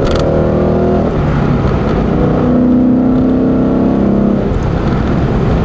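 2015 Ford Mustang GT's 5.0-litre V8 under hard acceleration, heard from inside the cabin over road noise. The engine note breaks off about a second in and again near the end, at gear changes.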